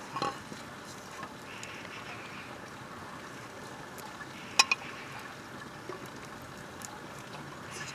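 Metal spoon clinking against a steel cooking pot and metal plate as fried chicken pieces are ladled out, with a few clinks at the start and a sharp double clink, the loudest sound, about halfway through. Underneath, a steady hiss with scattered faint crackles from the wood fire.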